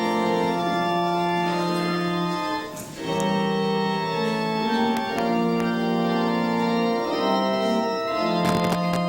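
Organ playing the introduction to a congregational hymn in held chords, with a brief break between phrases about three seconds in. A few faint knocks come near the end.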